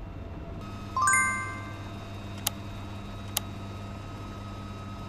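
Subscribe-button animation sound effects: a bright chime rings out about a second in, then two sharp clicks about a second apart, over a steady low hum.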